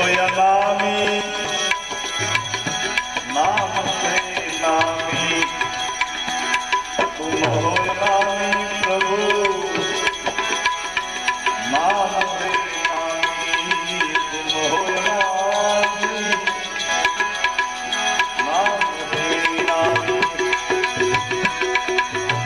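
Tabla playing a steady rhythm in a Gujarati bhajan, over held notes of accompanying instruments.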